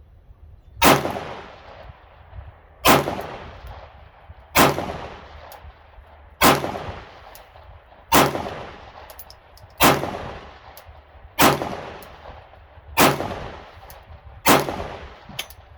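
Glock 19 Gen 5 9mm pistol fired in slow, steady single shots: nine shots about a second and a half to two seconds apart, each followed by a short echo. The pistol feeds and cycles each round from a Glock 17 magazine without a malfunction.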